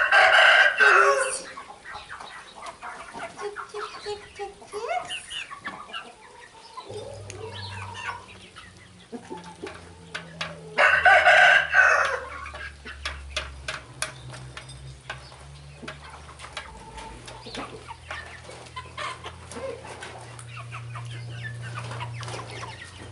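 Chickens clucking in a run, with two loud rooster crows, one right at the start and one about eleven seconds in. A low steady hum comes in underneath about seven seconds in.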